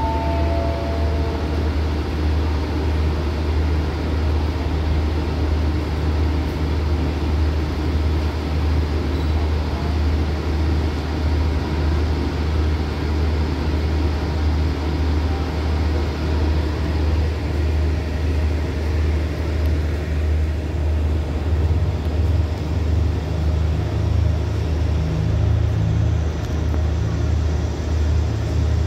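Diesel engines of a standing passenger train idling: a steady low hum with an even pulse. A brief high tone sounds right at the start.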